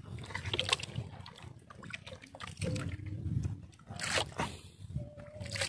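Seawater trickling and dripping off a longline as it is hauled by hand over a wooden boat's gunwale, with scattered light clicks and knocks from the line and its gear.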